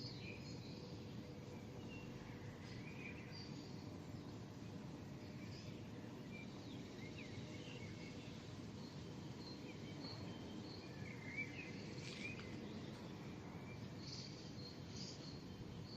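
Scattered short bird chirps and calls over the steady low hum of a city at dawn.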